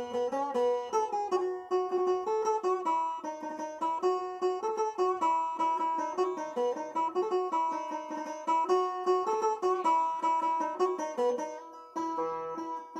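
Background music: a plucked string instrument playing a quick melody.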